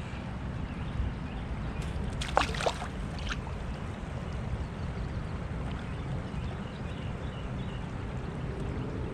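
Steady low rumble of wind and river water around a drifting fishing boat, with a few brief clicks and a short falling tone about two to three seconds in.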